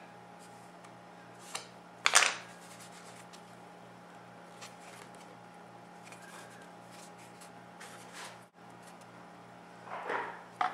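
Handling noise of wire miter spring clamps and a small wooden frame on a workbench: a sharp scrape-and-click about two seconds in and a few more short clicks and rubs near the end, over a steady low hum.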